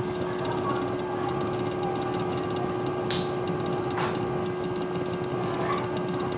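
Steady mechanical hum with one constant tone, and two brief sharp swishes about three and four seconds in.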